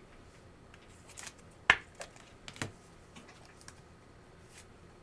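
Trading cards being handled on a table: a few soft taps and slides, with one sharp click just under two seconds in and smaller clicks after it.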